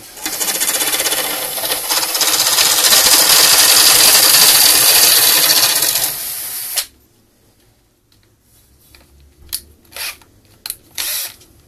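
A power drill spins a wooden dowel through a 3D-printed, pencil-sharpener-style shaver, whose chisel blade shaves it round with a loud, steady shaving noise. The noise stops abruptly about seven seconds in as the cut finishes, and a few short knocks follow.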